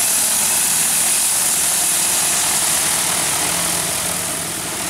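DJI Agras T40 agricultural drone flying close by, its rotors running with a steady, even rush and hum.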